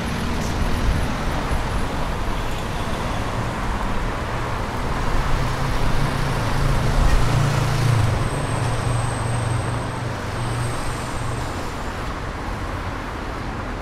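Road traffic on a city avenue: vehicles passing with tyre and engine noise, and one heavy vehicle's low engine hum building to its loudest about halfway through, then fading.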